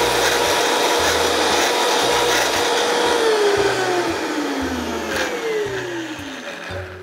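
High-powered countertop blender running at speed, grinding soaked hazelnuts with water and lemon juice into a thick nut cheese. About three seconds in, its motor pitch starts falling in two downward glides as it is slowed and spins down, getting quieter toward the end.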